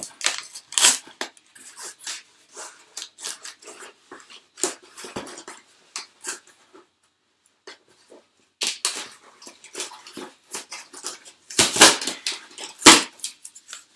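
Cardboard box being torn open by hand: irregular crackling, scraping and ripping of cardboard and packing tape, with the loudest sharp rips near the end.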